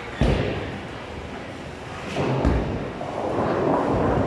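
Bowling alley: a heavy thud, then another about two seconds later, and a bowling ball rolling down the wooden lane with a rumble that builds toward the end.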